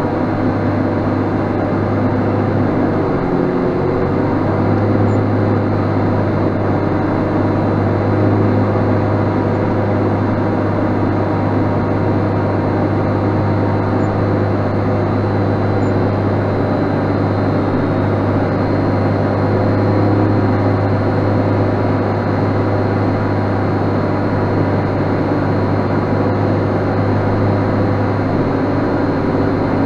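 JCB Fastrac 7270's Cummins six-cylinder turbo diesel running steadily under heavy load, pulling a six-furrow plough.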